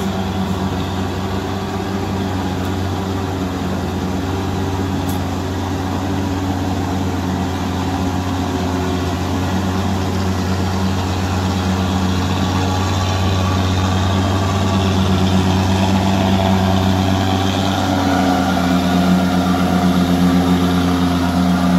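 Heavy diesel truck engine labouring steadily up a steep climb, growing louder toward the end as the truck draws near.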